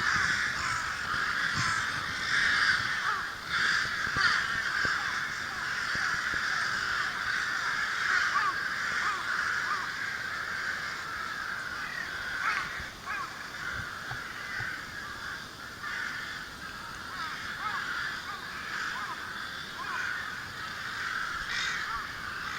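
A large flock of rooks cawing continuously, with many harsh calls overlapping into a steady chorus.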